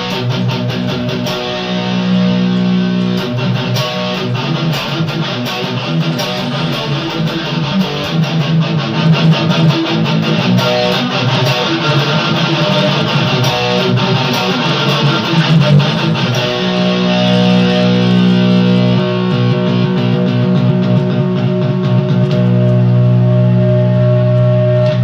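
Custom hybrid electric guitar played on its bridge pickup through a distorted tone: chord riffing in the middle, then long chords left to ring in the last third.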